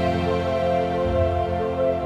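Background music of slow, sustained chords.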